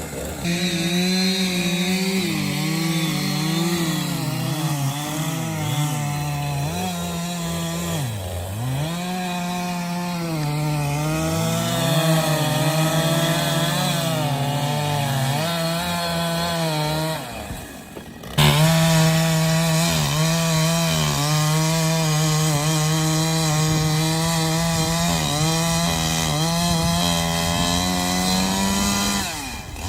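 Gas chainsaw running at high revs while cutting a fallen tree, its engine pitch sagging as it loads up in the cut and climbing back again. The sound breaks off sharply about 17 seconds in, then the saw is back at full speed.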